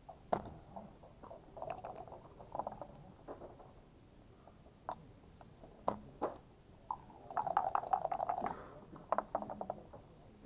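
Backgammon checkers and dice clicking and clacking on the board in fast play, with a dense run of rapid clacks from about seven to eight and a half seconds in.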